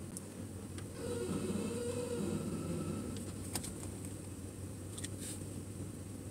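Steady low hum inside a parked car's cabin, louder for a couple of seconds from about a second in, with a few light clicks and taps.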